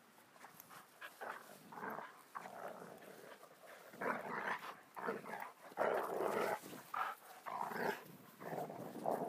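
Two dogs play-fighting, growling and grunting in rough, irregular bursts that get louder about four seconds in.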